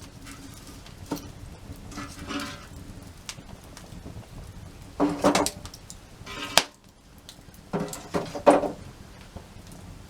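Firewood being handled and snapped: a handful of irregular wooden knocks and cracks, the loudest about five and eight and a half seconds in.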